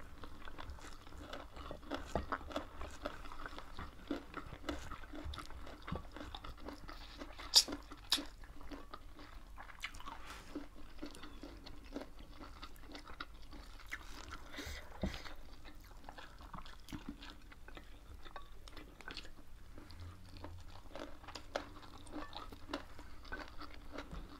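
Chewing and crunching of two people eating by hand, close to the microphone, with wet mouth sounds and many small clicks. One sharper crack stands out about seven and a half seconds in.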